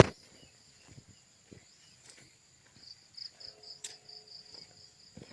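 Field insects, crickets, chirring steadily in a high pulsing trill, with a sharp knock at the very start and a few soft clicks and rustles of handling.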